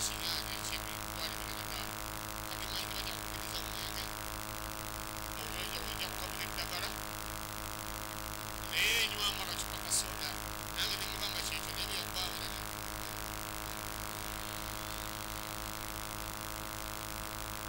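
Steady electrical hum from a public-address system, with a man's voice coming through the handheld microphone in short bursts.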